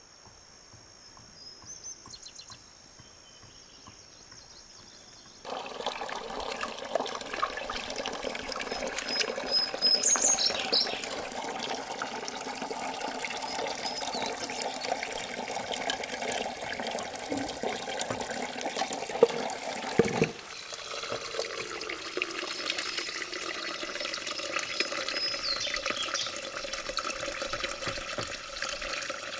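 Water running steadily, starting abruptly after a few quiet seconds, with a couple of short high chirps and a sharp knock about twenty seconds in.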